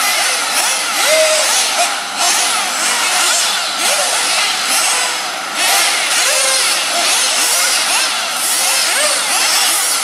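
Several 1/8-scale off-road nitro RC buggies racing at once: their small nitro engines give a high, buzzing whine, with many overlapping revs rising and falling as they accelerate and lift off.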